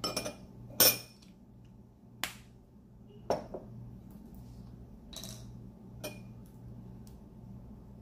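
Metal spoon clinking against a small glass bowl and bottles being set down on a wooden table: about six sharp clinks and knocks, the loudest about a second in, over a faint low hum.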